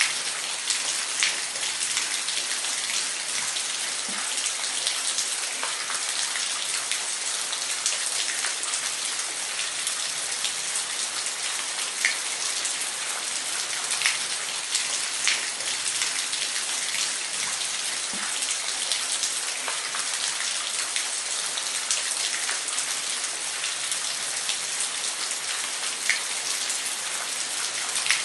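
Waterfall: a steady hiss of falling water with many scattered sharp drop and splash ticks.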